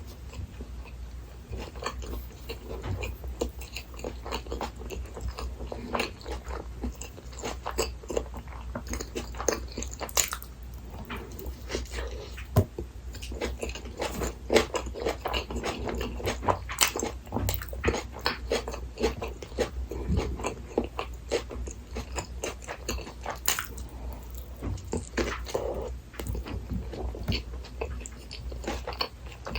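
Close-miked eating sounds from a burger-and-fries meal: steady biting and chewing, with many small crunches and wet mouth clicks.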